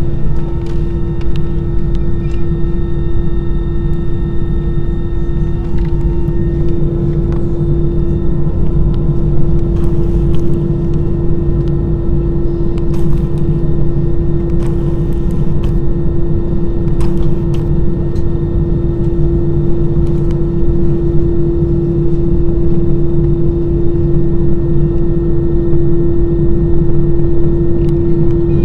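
Airbus A320 cabin noise while taxiing: the jet engines running at idle, a steady hum with one constant tone over a low rumble.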